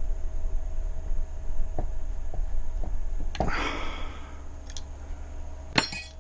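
Faint clicks and a rustle, then sharp metallic clinks near the end as hand tools and metal pump parts are handled, over a steady low hum.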